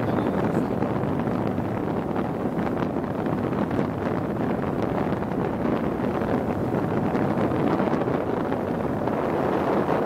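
Steady noise of a small boat under way on the river, its motor running, with wind buffeting the microphone.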